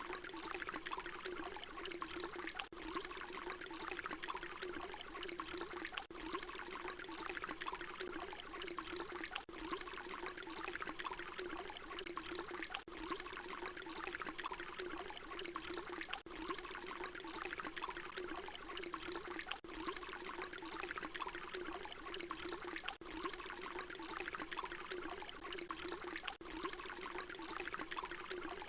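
Water pouring steadily, with a brief dip about every three and a half seconds where the short recording loops.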